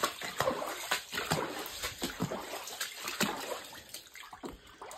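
Footsteps splashing and sloshing through about five inches of standing water on a flooded cellar floor, an irregular run of wet steps that grows fainter towards the end.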